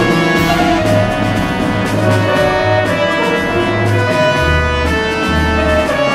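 Background music: sustained chords over a pulsing bass line that steps down to a lower note about four and a half seconds in.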